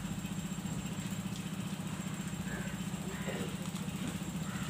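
A steady low mechanical drone with a fast, even flutter, like an engine or motor idling.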